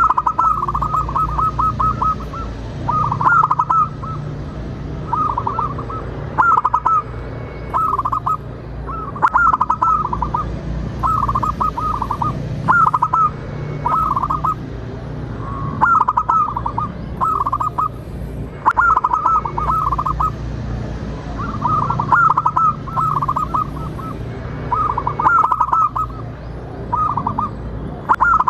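Zebra dove cooing: short phrases of rapid staccato notes, repeated every one to two seconds. A steady low hum runs underneath.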